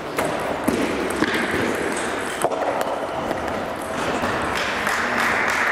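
Table tennis hall ambience with scattered sharp clicks of celluloid balls. Applause starts to build about four seconds in at the end of the match.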